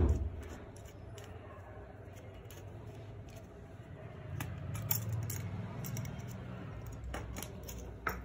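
Handling sounds of a desoldering pump and soldering-kit parts: a knock at the start, then scattered light clicks and taps, with a couple of clicks near the end as the pump is set down on a wooden desk.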